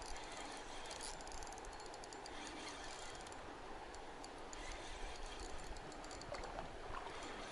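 Spinning reel being cranked with a fish on the line, its gears giving a faint, fast ticking.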